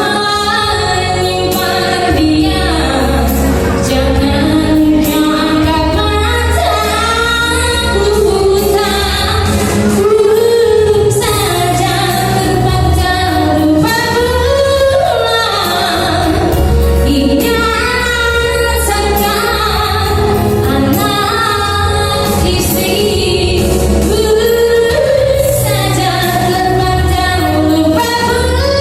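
Background song with a female singer over a steady bass accompaniment.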